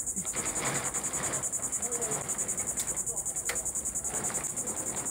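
A steady, high-pitched, rapidly pulsing insect chorus, cricket-like, running throughout. Underneath it, a plastic tarp crinkles as it is dragged into place.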